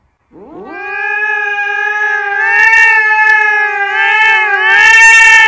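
A cat yowling: one long, loud call that rises in pitch as it starts and then holds steady for about five seconds.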